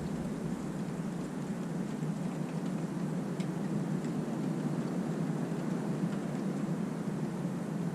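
Steady rain hiss during a thunderstorm, with a low rumble fading away about a second in.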